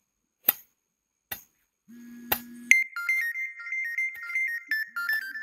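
Two sharp knocks in the first second and a half. Then, from about halfway, a high electronic tune of quick stepping beep-like notes plays over a low hum.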